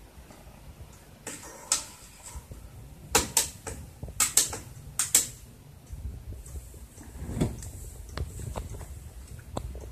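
Relays on the control board of an AEG Öko Lavamat 60600 washing machine clicking as the program runs, several sharp clicks in quick pairs between about one and five seconds in, then fainter scattered ticks.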